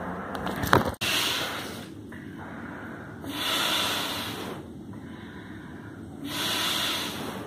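Three long hissing rushes of air, each about a second long and a couple of seconds apart, over a low steady hum, with a sharp click just before the first.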